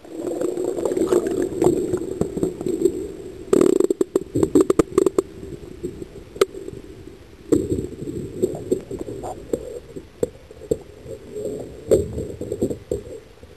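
Muffled water sloshing and irregular knocks and clicks, heard through the microphone of a small waterproof camera held underwater beside a kayak. A denser burst of clattering clicks comes about three and a half seconds in.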